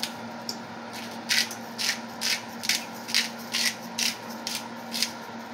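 Salt grinder twisted by hand, grinding pink salt in short gritty strokes about twice a second.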